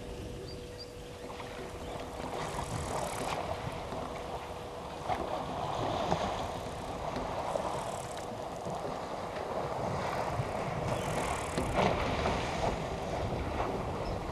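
Water splashing and sloshing in irregular surges as elephants wade and drink at a waterhole, with a few sharp splashes about five, six and twelve seconds in.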